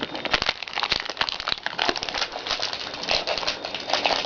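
Foil Pokémon booster pack wrapper crinkling as it is torn open and handled: a dense, irregular run of crackles.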